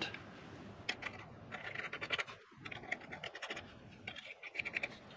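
Lug nuts being spun by hand onto wheel studs: a run of faint, quick, irregular scratchy clicks as the nut threads turn on the studs.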